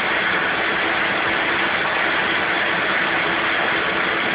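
Shop vac running steadily, its hose drawing air at a leather couch cushion: an even rushing noise with a steady hum underneath.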